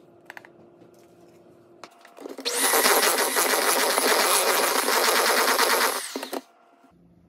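Electric hand mixer switched on about two seconds in, its motor running with a steady high whine while the beaters churn thick batter in a mixing bowl; it runs for about four seconds and stops.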